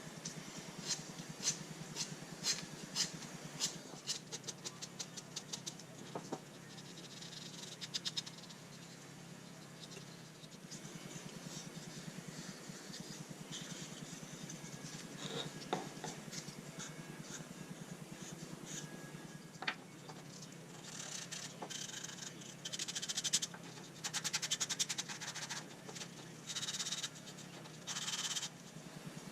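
Sandpaper rubbed by hand on the wood of a small band saw box: quick runs of short scratchy strokes in the first few seconds, then longer bursts of rubbing near the end.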